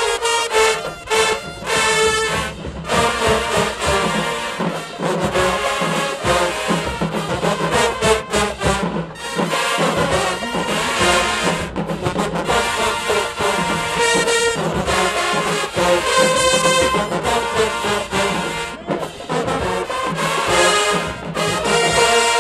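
Marching band playing loudly in the stands: a wall of brass (trumpets, trombones, sousaphones) over marching bass drums and percussion.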